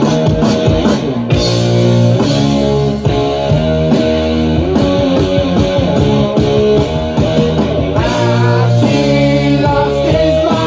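Rock music with electric guitar and singing, with a steady beat.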